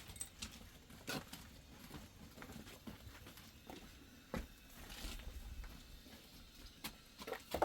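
A few faint, scattered knocks and clicks over a quiet background.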